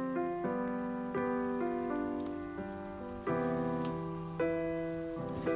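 Background piano music: a gentle melody of held notes that each fade a little before the next one starts.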